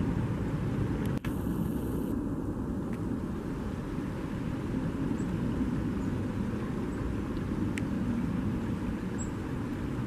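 Steady low outdoor rumble, with a few faint, high bird chirps scattered through it.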